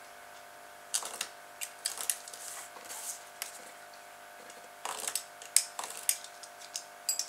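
Craft knife blade scraping and clicking against a strip of corrugated plastic (Corex) as it is cut and trimmed: a run of irregular short scratches and ticks starting about a second in, over a faint steady hum.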